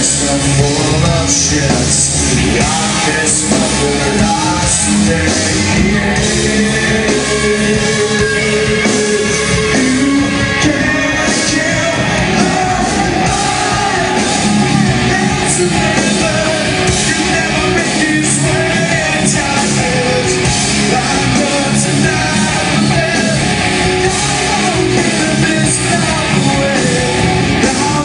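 Heavy rock band playing loud live, with a male lead vocalist singing into the microphone over the band.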